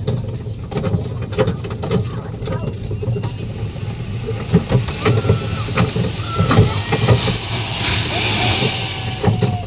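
Busy outdoor amusement-area ambience: background voices over a steady low engine-like rumble, with scattered clicks and knocks and a brief hiss near the end.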